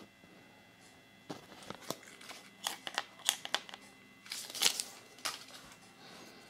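Paper Kinder Surprise toy instruction leaflets crinkling as they are handled and stood up on a table: a string of short crackles and clicks starting about a second in, with the loudest crinkle about two-thirds of the way through.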